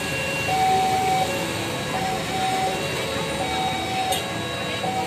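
Railway level-crossing warning alarm sounding, an electronic chime repeating in two alternating tones, over the steady noise of motorcycles and cars.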